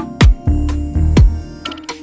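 Background music with a steady beat: deep kick-drum hits that drop in pitch, about one a second, over held notes.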